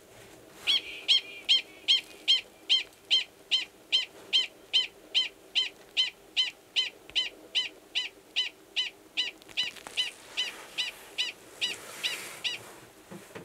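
Male Gunnison's prairie dog giving a mating call: a long run of short, high-pitched calls, about two and a half a second, starting just under a second in and stopping shortly before the end, growing a little fainter as it goes. The mating call sounds the same as the species' alarm call.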